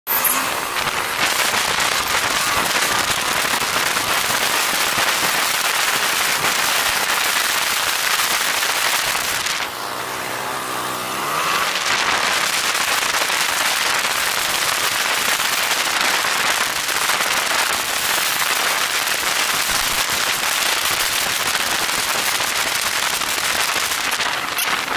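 Wind rushing and crackling over the microphone of a riding motorcycle, loud and steady. About ten seconds in the wind eases for a couple of seconds and the motorcycle's engine is heard underneath, its pitch shifting.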